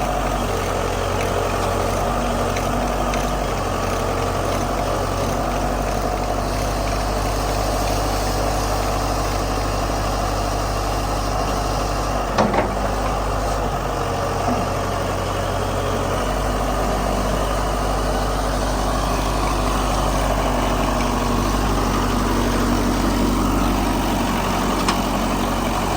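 Case 580B backhoe's engine running steadily, with one sharp knock about halfway through.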